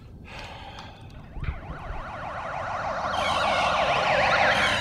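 Police sirens approaching, starting about a second and a half in and growing steadily louder: several sirens overlap, their pitch sweeping quickly up and down.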